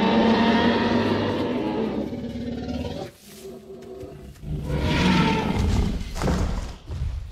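Movie dinosaur roar sound effect: one long, loud roar, then after a short lull a second roar about four and a half seconds in.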